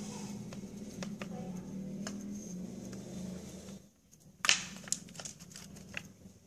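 Glitter slime being squished and worked, giving off scattered sticky clicks, with one loud sharp pop about four and a half seconds in.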